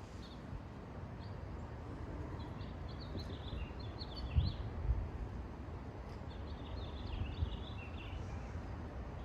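Small birds chirping in two spells of quick high chirps, over a steady low wind rumble on the microphone with a couple of buffeting thumps near the middle.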